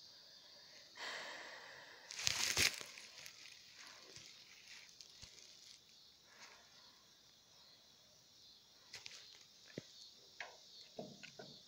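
Rustling of grass and handling noise from the camera moving among plants: a louder crackly rustle about two seconds in, then scattered small clicks and rustles near the end, over a faint steady high hiss.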